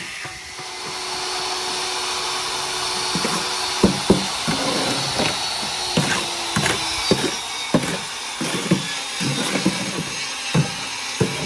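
A shovel chopping and scraping wet mortar in a metal wheelbarrow, a sharp knock about every half second from about four seconds in, over a steady hiss.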